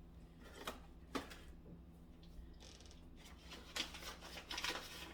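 Faint handling of food packaging: two light clicks, then crinkly rustling of paper or plastic as a box or packet of cheesecake mix is opened.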